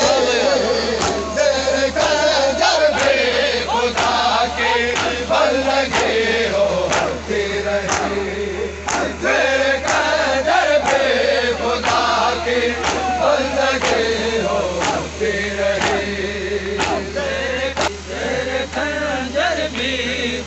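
A crowd of men chanting a Shia noha in unison, with sharp beats about once a second.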